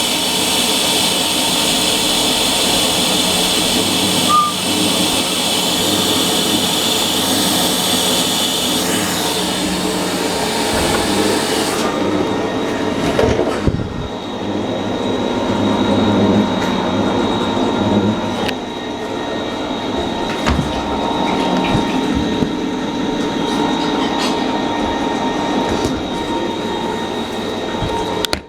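Fisher & Paykel MW512 washing machine running with a steady mechanical drone. A high hiss on top cuts out about twelve seconds in, leaving the drone and a thin steady whine.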